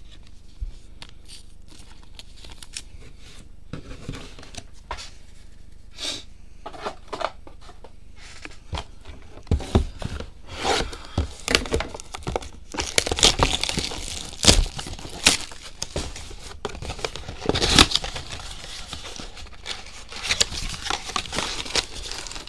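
Trading-card packaging being torn and crinkled open by hand: a few scattered crackles at first, then busier tearing and crinkling from about ten seconds in.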